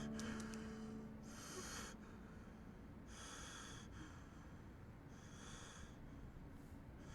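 A person breathing audibly and slowly, with a breath about every one and a half to two seconds.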